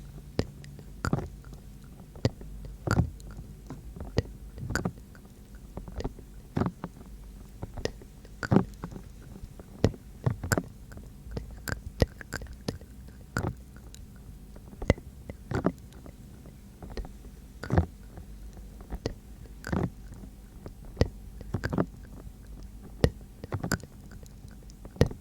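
Close-miked ASMR trigger sounds: short, soft clicks and taps right at the microphone, irregular, about one or two a second and sometimes in quick pairs.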